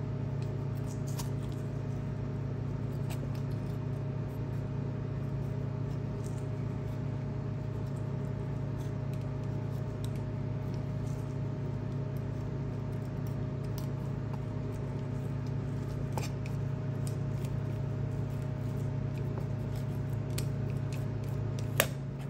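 Knife cutting through raw chicken on a cutting board: faint scattered clicks and taps over a steady low kitchen hum, with one sharper knock near the end.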